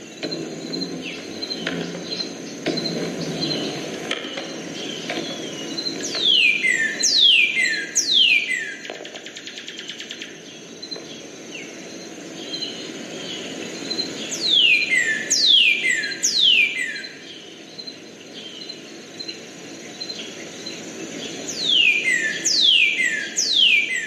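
Male northern cardinal singing: three phrases, each of three loud, clear whistles slurring steeply downward.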